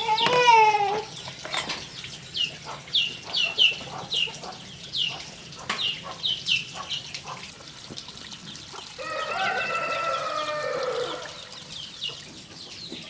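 Chickens calling: a wavy call at the start, then a run of short, high, falling chirps, then a drawn-out rooster crow about nine seconds in lasting about two seconds.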